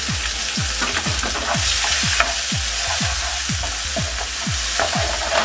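Sliced onions frying in hot oil in a nonstick pan: a steady sizzle, with a wooden spatula stirring them around the pan. Underneath, a low thud repeats evenly about twice a second.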